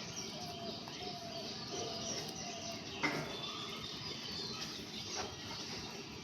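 Small birds chirping, many short rapid calls overlapping, with a single sharp click about three seconds in.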